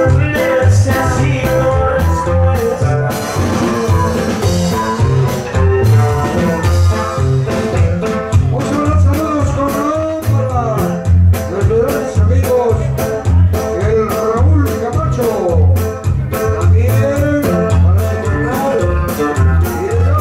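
Live dance-band music: a steady, loud bass beat with evenly spaced percussion hits, and a sung melody that comes in about eight seconds in.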